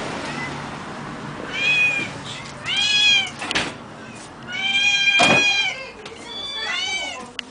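Domestic cat meowing four times, each call rising and falling in pitch, the third one long and drawn out. A couple of sharp clicks come between the calls.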